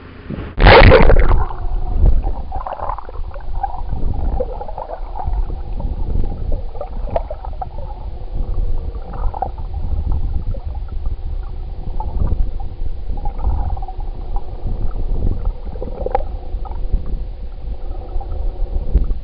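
A loud splash about half a second in as the camera goes under the surface, then the muffled low rumbling and gurgling of water around a submerged camera.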